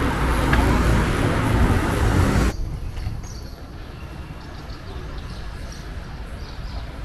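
Loud outdoor city-street noise with a heavy low rumble. It cuts off abruptly about two and a half seconds in, leaving a much quieter open-air background with a few faint high chirps.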